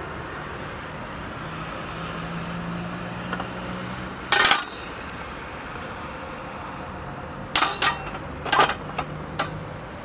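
Metal cookware and utensils clinking: one sharp clink about four seconds in, then a run of clinks near the end, over a steady low hum.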